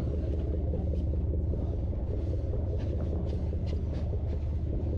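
Sportfishing boat's engine running, a steady low rumble with a few faint ticks now and then over it.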